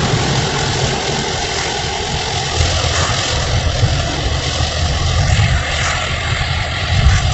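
Inside a car driving through heavy rain: a steady low drone of engine and tyres on the wet road, under an even hiss of rain on the windshield and body.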